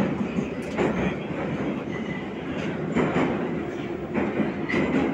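Metro train running through a tunnel, heard from inside the car: a steady rumble with knocks from the wheels on the rails every second or so, and a brief faint squeal now and then.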